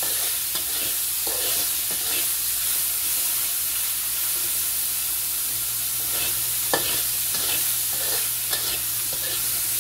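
Petai beans with shallots and garlic sizzling in oil in a wok while a metal spatula stirs and scrapes them around the pan, with one sharper clink of the spatula about seven seconds in.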